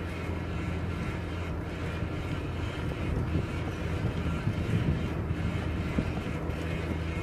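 Steady wind rumble on the microphone of a camera mounted on a moving bicycle.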